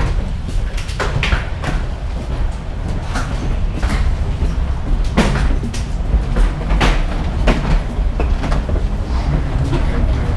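Footsteps and wheeled carry-on suitcases rolling over a jet bridge floor, with irregular knocks and clicks over a steady low rumble.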